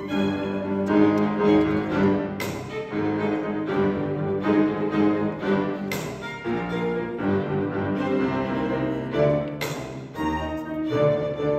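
A string trio of bowed violin, a second upper string and cello plays a slow classical piece in sustained, overlapping notes, with a few sharp accented strokes. It is heard from the seats of a reverberant concert hall.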